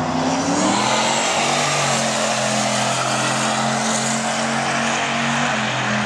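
Car engine running at steady revs, its pitch climbing slightly in the first half second and then holding, under a loud even hiss.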